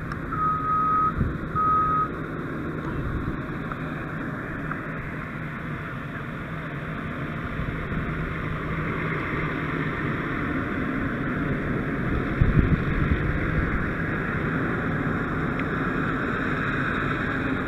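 Two high electronic beeps near the start, then the steady running of a fire engine's diesel engine, with a brief flurry of knocks about twelve seconds in.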